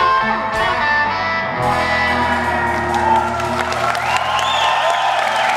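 Electric guitars and band holding the final ringing chords of a live rock song while the concert crowd applauds and cheers, with whoops rising near the end.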